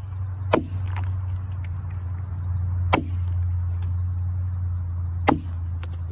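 A 5.5 lb Kentucky pattern axe chopping into a cottonwood log: three sharp blows, about two and a half seconds apart, over a steady low rumble.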